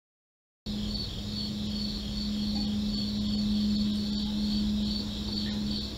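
After a moment of dead silence the sound cuts in abruptly: a steady chorus of crickets trilling in a pulsing high band, with a steady low hum beneath.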